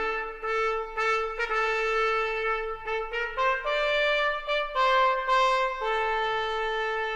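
Solo trumpet playing a slow melody of long held notes, as background music.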